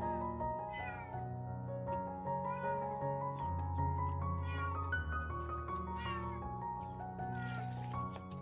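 A wet stray cat meowing over and over, about five drawn-out yowls that rise and fall in pitch, as it resists being bathed.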